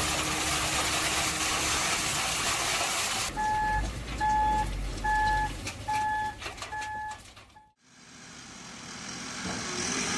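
Heavy machinery running with a dense rushing noise. After a cut, a heavy vehicle's reversing alarm beeps five times at an even pace, a little over once a second, over low engine rumble. Near the end the sound drops out briefly and another engine fades in.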